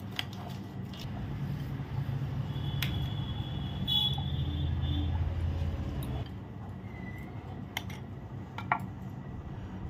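Metal spoon scraping through soft ice cream and clinking against a glass bowl and drinking glass, with a couple of sharp ringing clinks about three and four seconds in. A low rumble swells underneath in the middle.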